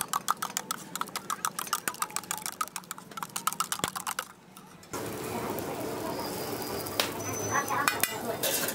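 A metal spoon rapidly beating eggs in a steel tumbler, clinking against the cup about six or seven times a second; the beating stops about four seconds in. From about five seconds a steady hiss follows: the omelette sizzling on a hot flat griddle.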